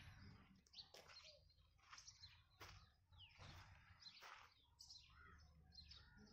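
Near silence with faint, scattered bird chirps, short calls every second or so.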